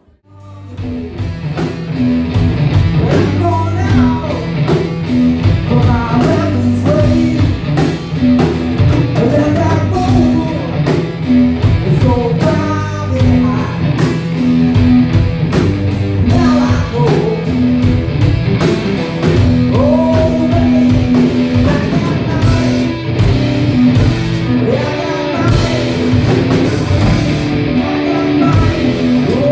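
Live rock band playing a song: a singer over electric guitar, bass and a steady drum beat, coming up from a brief gap at the start.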